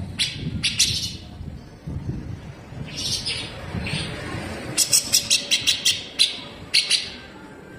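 Cucak jenggot (grey-cheeked bulbul) giving harsh, sharp 'besetan' calls in short bursts, with a fast run of about seven notes in the middle. A low rumble runs beneath.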